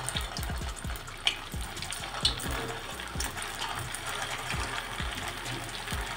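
Bread-coated pea cutlets deep-frying in hot oil in a pan, a steady bubbling sizzle as more cutlets go in. Two sharp clicks stand out about one and two seconds in.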